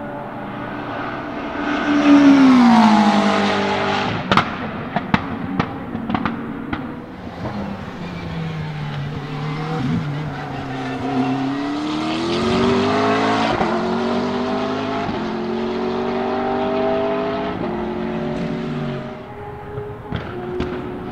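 McLaren 650S GT3 race cars' 3.8-litre twin-turbo V8 engines at speed on the circuit. The engine note drops steeply about two seconds in, the loudest moment, followed by a string of sharp pops. It then climbs again and holds a steady note before dropping near the end, with a few more pops.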